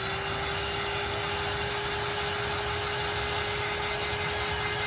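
Handheld electric heat gun running steadily: a motor whine at one held pitch over the rush of its fan's air, drying a freshly applied layer of chalk paste.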